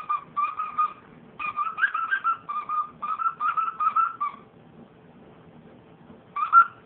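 Squeaker in a plush dog toy squeaking in quick runs as a dog bites down on it, about a dozen short squeaks in the first four seconds, then a pause and one louder squeak near the end.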